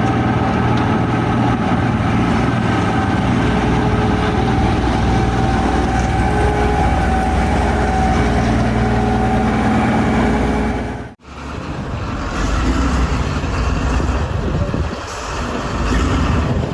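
A snow-clearing train ploughing through drifts: loud steady machine rumble with a steady high whine on top. About eleven seconds in it cuts off abruptly and gives way to a different, more uneven engine noise.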